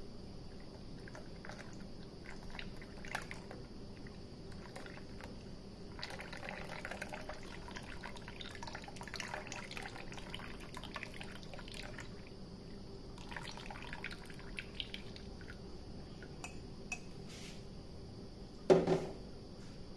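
Milky tea poured in a thin stream into a glass teacup, splashing and dripping as it fills and froths, heaviest in the middle. Near the end a single short, much louder sound stands out.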